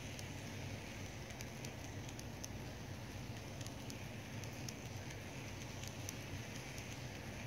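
N-scale Kato Southern Pacific Daylight passenger cars rolling past on Kato Unitrack: a steady low rumble of the train on the track, with quick, irregular ticking as the wheels cross the rail joints.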